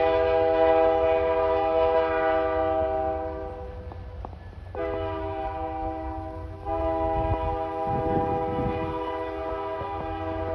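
Train horn sounding in long blasts, a chord of several steady tones. It breaks off for about a second partway through and then sounds again, over a steady low rumble.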